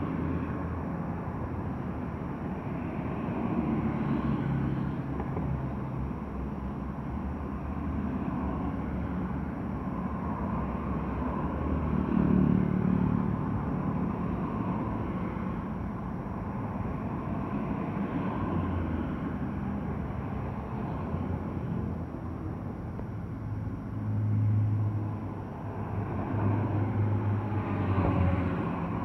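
Outdoor engine rumble that holds steady, with low engine notes changing pitch and several swells in loudness, the loudest about twelve seconds in and two more near the end.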